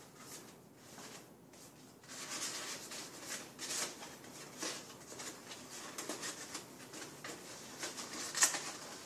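Stiff paper pieces of an IQ lamp rustling as hands bend and interlock them, the paper flexed hard enough to crease. The rustling is faint at first, picks up about two seconds in, with the loudest rustle near the end.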